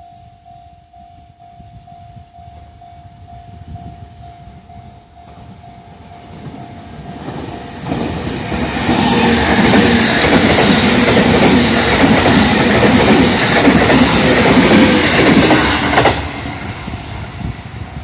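A level-crossing warning bell rings in an even repeating ding, about two a second. Then a JR Central 313 series electric train passes close by at speed, and its wheel and rail noise is loud for about eight seconds. The train noise cuts off suddenly about two seconds before the end.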